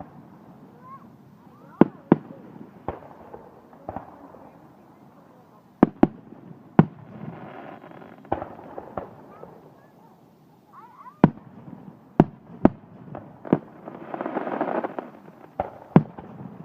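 Fireworks going off: a string of sharp bangs at uneven intervals, some in quick pairs, with two longer hissing, crackling stretches, one around the middle and one near the end.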